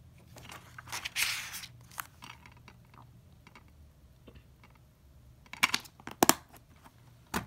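A plastic DVD case being handled: a paper insert rustles about a second in, then several sharp plastic clicks and snaps near the end as the case is shut and set down.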